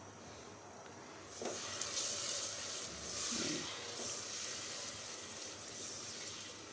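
Sugar, cooking oil and a little water sizzling in a saucepan on the stove as a spatula stirs them: the start of a sugar syrup. The steady hiss sets in about a second and a half in.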